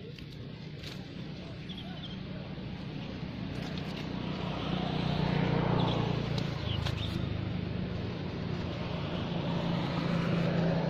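Motor vehicle engine running steadily off-camera, growing louder to a peak about halfway through, easing off, then swelling again near the end.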